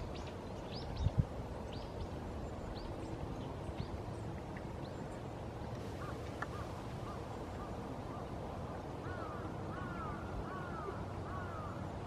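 Northern pintail calling: a run of short arched calls, repeated about five times, near the end, with a few shorter notes near the middle. Faint, thin high chirps come in the first few seconds, over a steady low background noise.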